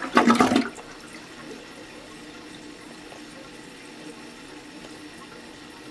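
Toilet cistern refilling after a flush: a steady hiss of water running into the tank, with a faint steady tone from the fill valve. It opens with a brief loud burst that sounds like a voice.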